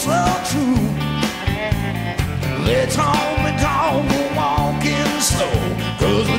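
Background music: a rock song with a sung melody, guitar and a steady beat.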